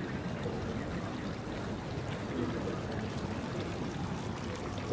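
Steady outdoor street ambience: an even rushing noise with no distinct events.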